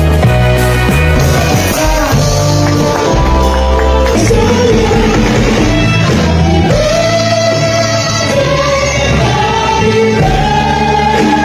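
A live band playing a song, with singers holding long notes over a bass line.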